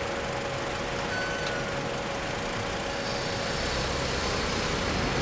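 Road traffic idling at a level crossing while the barriers rise: an even engine and street noise with a steady hum throughout, and a short high chirp about a second in.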